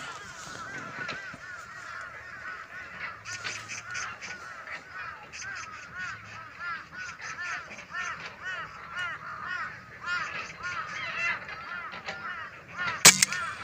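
Magpies calling, a long run of quick repeated chattering notes, several a second. About 13 seconds in, a single sharp crack of a scoped air rifle firing, the loudest sound; the magpie falls to this shot.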